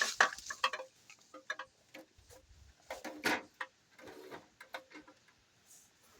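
Light, irregular clicks and knocks of small objects being handled while rummaging through a dumpster.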